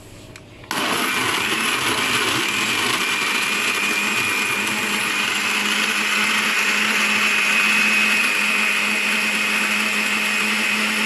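Countertop electric blender switched on about a second in, then running steadily at full speed as it blends pineapple, ice cubes, milk and yogurt into juice, with a steady high motor whine.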